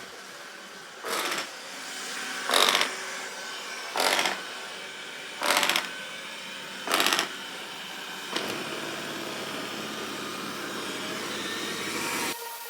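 Five short rattling bursts, evenly spaced about a second and a half apart. After about eight seconds the motor of a robot vacuum starts and runs with a steady hum.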